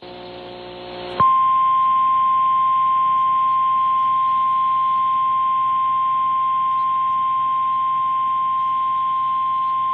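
Emergency Alert System attention tone: a single steady, loud, high-pitched tone that starts about a second in and holds unchanged, signalling that a severe thunderstorm warning message follows. A brief hiss comes before it.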